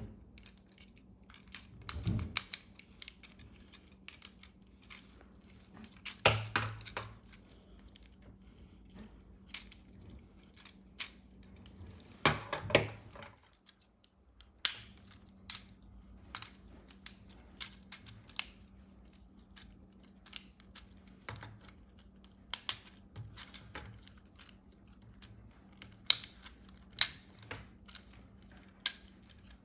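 Plastic clicks, snaps and rattles of a Transformers Cyberverse Deluxe Soundwave action figure's joints and panels being folded by hand during its transformation, scattered irregularly with a few louder bursts of clatter.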